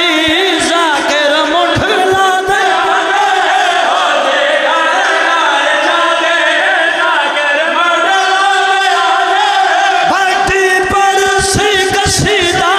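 A group of men chant a Shia majlis lament together into microphones through a PA, their voices wavering and unbroken. Low thumps come now and then, more often near the end.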